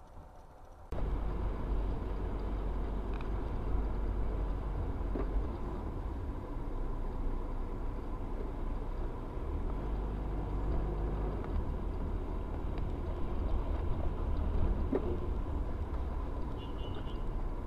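Car cabin road and engine noise picked up by a windscreen dashcam while driving: a steady low rumble that starts suddenly about a second in.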